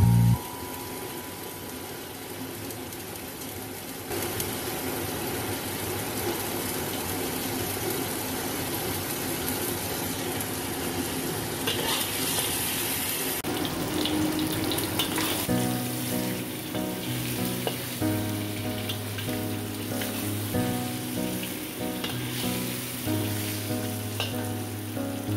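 Spare ribs sizzling as they fry in oil in a wok, with a metal spatula scraping and turning them about halfway through. Background music with steady low notes comes in about two-thirds of the way through.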